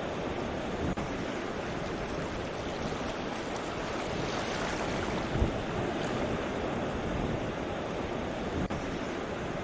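Sea waves washing on a shore in a steady rushing surf, with a brief low thump about halfway through.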